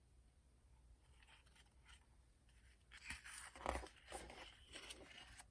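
Pages of a picture book being turned by hand: a few short paper rustles starting about three seconds in, after a quiet pause.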